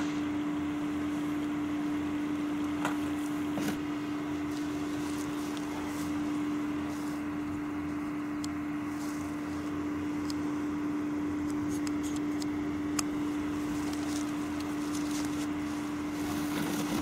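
A steady hum at one unchanging pitch over a light hiss, with a few faint clicks: one about three seconds in, one near four seconds, and one about thirteen seconds in.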